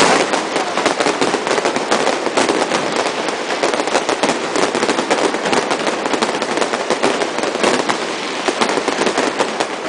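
Fireworks bursting overhead: a dense, continuous crackle of many rapid cracks overlapping, heard from right beneath the display.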